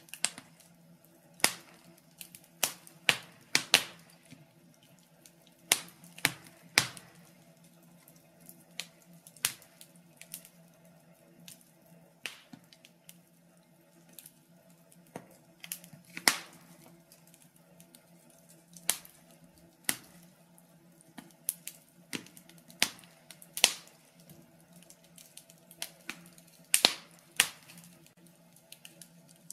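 Wood fire crackling in a stove: irregular sharp pops and snaps, sometimes several close together, over a steady low hum.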